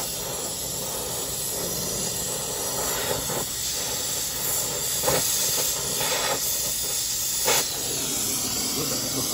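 Oxy-fuel brazing torch flame hissing steadily while it heats a brazed copper refrigerant line on an AC compressor to unbraze it. Four short, louder bursts of hiss break through, the loudest about halfway through and again near the end.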